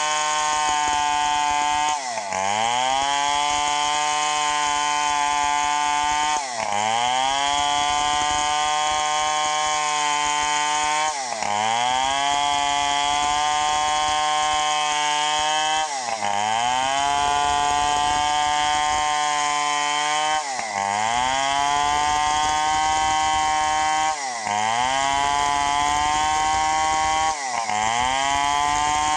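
Stihl 070 two-stroke chainsaw at full throttle, rip-cutting lengthwise through a teak log. Its engine pitch dips sharply about every four or five seconds and climbs straight back to full revs.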